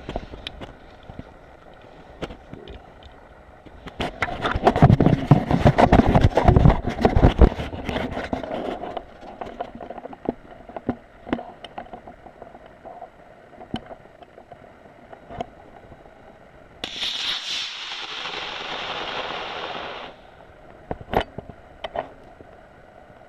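Loud crackling and rustling with scattered knocks for about five seconds. Later, an Estes E12-6 model rocket motor lights and burns with a steady rushing hiss for about three seconds, cutting off sharply at burnout.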